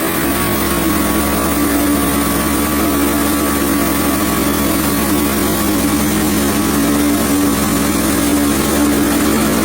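Gas engine of a Hudson HFE30 portable band sawmill running steadily.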